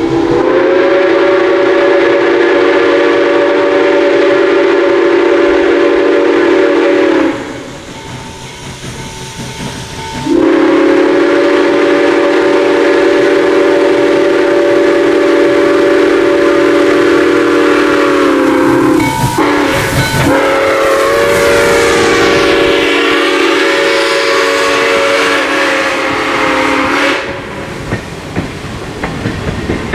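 Western Maryland Scenic Railroad 1309, a 2-6-6-2 Mallet steam locomotive, blowing its multi-tone steam whistle in three long blasts. Near the end the passenger train rolls by with a clickety-clack of wheels over the rail joints.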